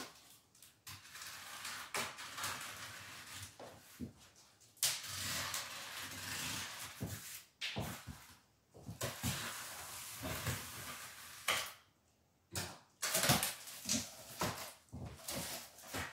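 Utility knife (Stanley blade) slitting the packing tape on a large cardboard box in several long strokes of about two seconds each, with knocks and cardboard rustling between them. Near the end the box flaps are handled and pulled open.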